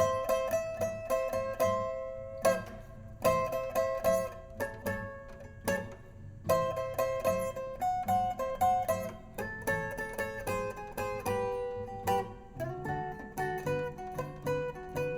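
Instrumental break in a blues recording: a guitar picking single notes and repeated two-note figures, with low bass notes underneath.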